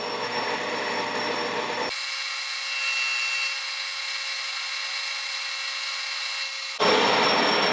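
Metal lathe running with its chuck spinning while the turning tool cuts down the diameter of a round metal bar: a steady whir and hiss with a few faint steady tones. About two seconds in the deeper part of the sound drops away abruptly, and it comes back about a second before the end.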